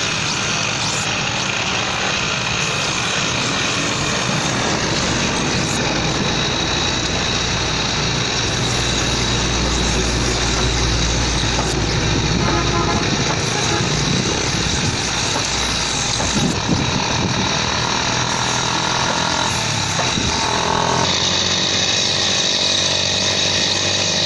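An old knife-sharpening machine running steadily, its wheel grinding with a continuous high hiss and a thin steady whine.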